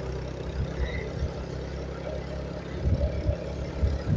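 Motorcycle engine running on the move, with wind buffeting the microphone in irregular low thumps.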